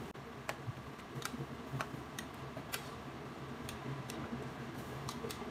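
Faint, irregular light clicks and ticks from a wok of minced pork, tomato and water being heated and stirred with a spatula.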